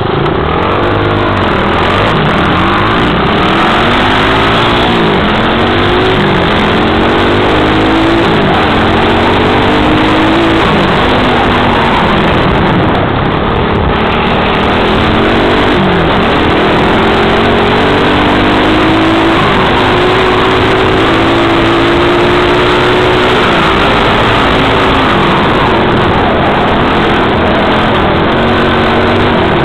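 Small dirt bike engine heard close up from the bike itself while riding, its pitch climbing and dropping again and again as the throttle is opened and closed.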